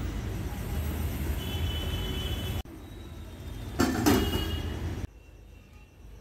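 A steady low rumble, then, about four seconds in, a nonstick kadai set down on a gas stove's metal grate with a clank.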